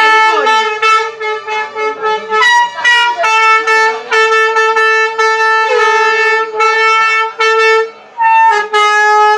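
A horn blown over and over on one steady note, in long and short blasts, with a second, higher note now and then.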